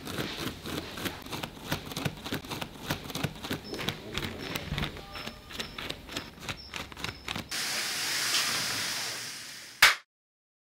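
Gloved hands folding and pressing a pleated polyester mesh screen: rapid, irregular clicking and crackling of the stiff pleats. Near the end a steady hiss swells for about two seconds and ends in one sharp hit, the loudest sound, then cuts to silence.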